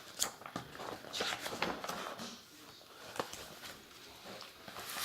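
Scattered knocks, clicks and short scrapes of someone moving about a small room, with a few footsteps; busiest in the first couple of seconds, then a single sharp click about three seconds in and another near the end.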